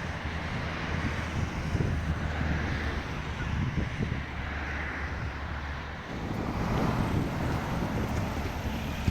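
Low, steady vehicle rumble with wind noise on the microphone.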